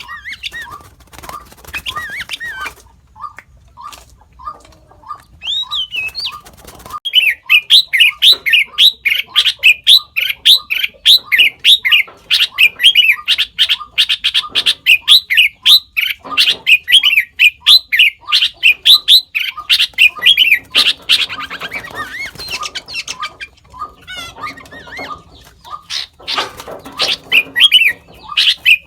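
Sooty-headed bulbul calling, a bird said to mimic other species. Soft repeated notes give way, about seven seconds in, to a long run of loud, rapid chirps that eases off after about twenty seconds.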